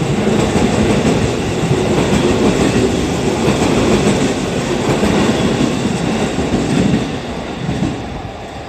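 JR East E233-0 series electric train running through the station, a steady rumble with wheels clattering over the rail joints, falling away about seven seconds in.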